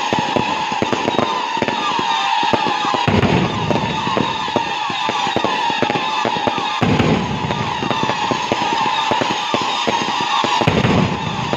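Fireworks display: a steady chorus of whistling shells over dense, rapid crackling, with three heavier deep booms about 3, 7 and 11 seconds in.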